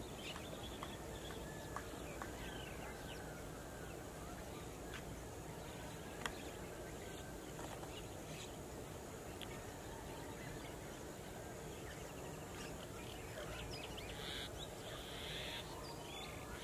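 Open-field ambience: a steady background hiss with scattered short, faint bird chirps, a single sharp click about six seconds in, and busier chirping near the end.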